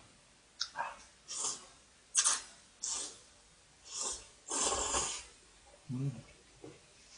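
A person slurping thick instant beef-broth noodles in a series of quick slurps, the longest and loudest just before five seconds in, then a few soft chewing sounds with a full mouth.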